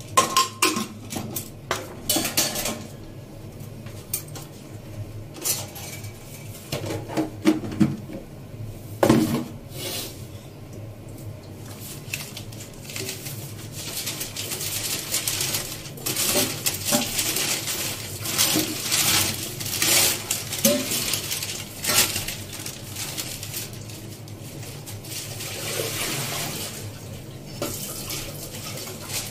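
Steel kitchen utensils clattering and clinking: pots, plates and spoons knocked and set down at irregular moments. A steady rushing hiss runs under the clatter through the second half.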